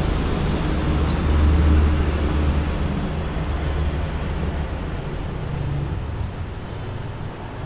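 Road traffic: a vehicle's low engine rumble swells and passes over steady traffic noise, then the noise slowly eases off.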